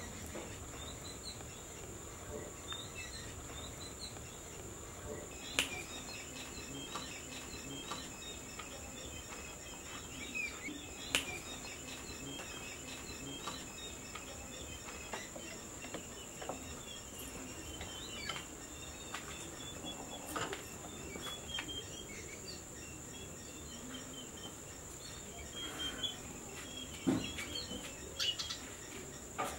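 A steady high-pitched insect drone with scattered bird chirps, and now and then a sharp click, the loudest about five and eleven seconds in.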